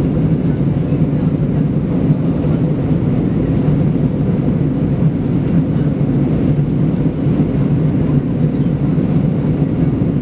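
Steady cabin noise of an Airbus A320 in flight, heard at a window seat over the wing: a low, even rumble of engines and airflow.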